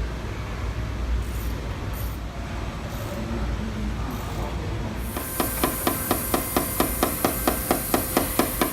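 Steady low shop hum. About halfway in it gives way to a rapid, even run of light metallic taps, about five a second: a paintless dent repair hammer and knockdown tapping down the high spots around a crease dent in the car's roof skin.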